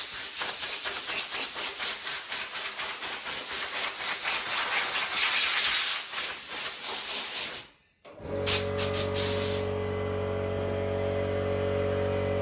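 Compressed-air blow gun hissing in gusts, blowing sanding dust off a freshly sanded surfboard ding repair; it cuts off abruptly just before 8 seconds in. After that, a steady low hum with a few clicks.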